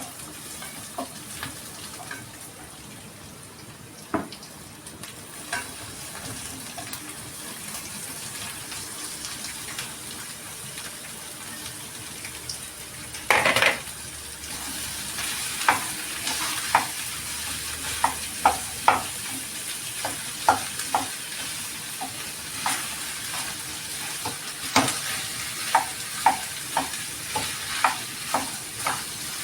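Food frying in a hot pan, with a steady sizzle and a spatula clicking and scraping against the pan as it is stirred. About 13 s in there is a loud burst of sizzling, as when ingredients go into the hot fat. After that the sizzle is louder and the stirring clicks come about once a second.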